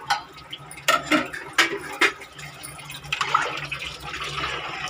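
Steel ladle clinking against a cooking pot a few times, then stirring and sloshing through rice and water.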